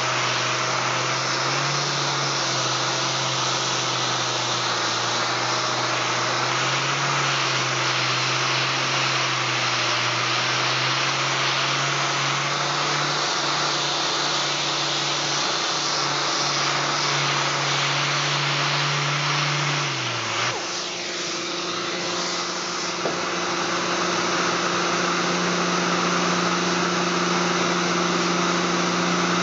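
3M six-inch random orbital air sander, on a dust-extraction hose, running against a solid-surface countertop, its pitch stepping up and down a little as it is worked. About two-thirds through its pitch falls away and it stops, leaving a steady machine drone.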